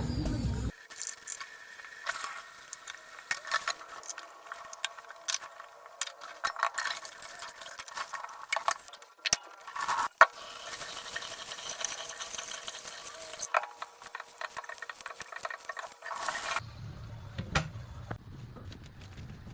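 Irregular light clicks and clattering over a faint steady hiss, with a few sharper knocks near the middle.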